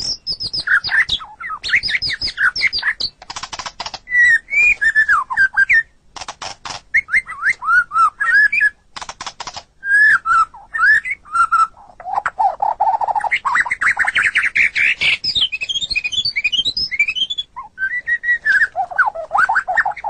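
White-rumped shama (murai batu) singing a long, varied song: whistled phrases gliding up and down, fast trills, and short dry rattles of clicks between them.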